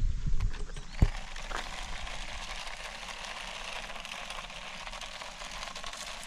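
Toy remote-control F1 car driving, a steady rushing noise from its small motor and tyres on a rough surface, with a sharp click about a second in.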